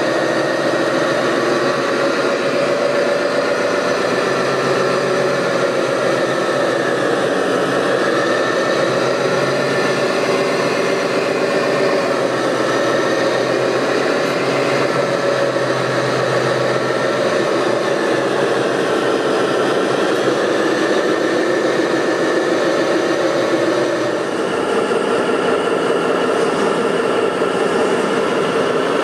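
Steady engine-like drone of running RC model construction vehicles, its pitch pattern shifting about 24 seconds in.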